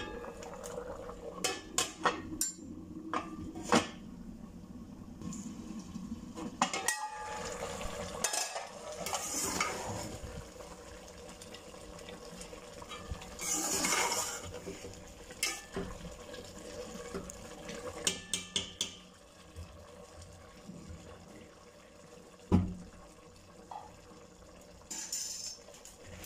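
Slotted steel spoon and metal lid clinking, knocking and scraping against an aluminium cooking pot as rice cooking in water is stirred. There are many sharp clicks throughout, a louder stretch about halfway through and one strong knock near the end.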